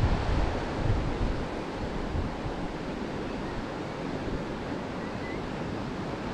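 Steady rush of a fast-flowing river running high after flooding, mixed with wind buffeting the microphone, gustier in the first second.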